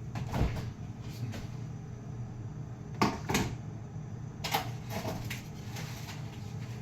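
Kitchen handling sounds: a few short knocks and clicks, with a pair about three seconds in and more around four and a half seconds, over a steady low hum.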